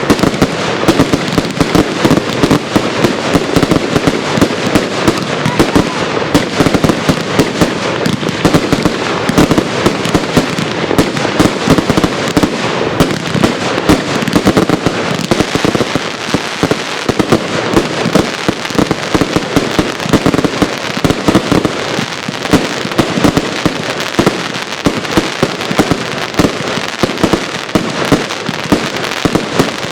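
Consumer fireworks going off in a dense, unbroken stream of shots and bangs, many a second.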